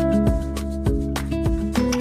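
Background music: plucked-string notes, guitar-like, over a steady bass line.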